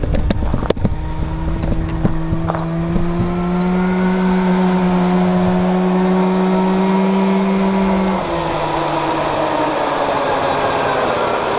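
Go-kart's two-stroke engine running hard at a steady high pitch as the kart comes back toward the camera, the note climbing slightly and then dropping suddenly about eight seconds in, after which it sounds rougher.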